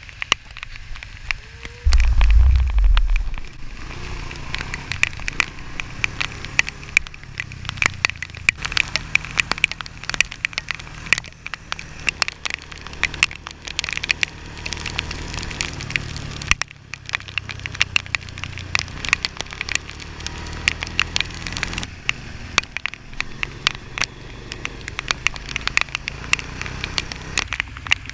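ATV engine running under a dense, constant patter of sharp clicks and crackles from rain and spray striking the camera housing, with one loud low thump about two seconds in.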